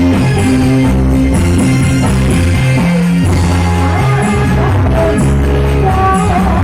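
Loud live band music: guitar over a strong, steadily moving bass line, in a rock style.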